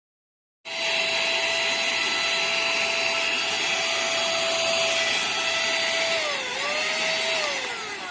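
AmazeFan 7-in-1 cordless mini vacuum cleaner and air blower's small electric motor running with a steady high whine. Its pitch dips and recovers about six seconds in, then falls away near the end before cutting off suddenly.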